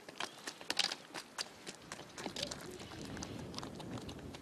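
Footsteps crunching on loose stones and gravel, a quick uneven run of steps that thins out after about a second and a half.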